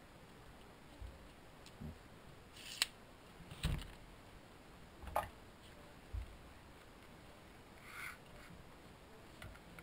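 Handling noises of a LiPo battery pack and digital calipers on a workbench: about eight short clicks and knocks spread out, the loudest a sharp click near three seconds in followed by a low knock as something is set down.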